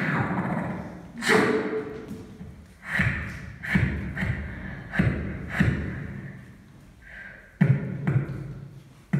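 Beatboxing: deep kick-drum-like thumps mixed with sharper, hissier hits, in an uneven rhythm with short gaps.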